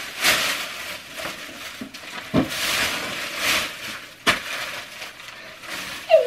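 Wrapping paper and a large bag crinkling and rustling as gifts are unwrapped and the paper is thrown away, with two sharp taps, one about two and a half seconds in and one past four seconds.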